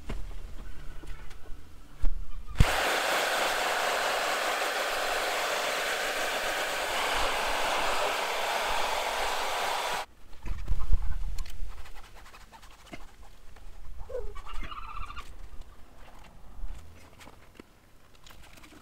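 A loud, steady hiss starts sharply about two and a half seconds in and cuts off about seven and a half seconds later. Low knocks and thuds follow, then quieter scattered sounds.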